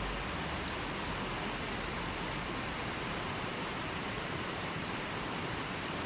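Steady, even rush of running water: a constant wash with no separate splashes or drops.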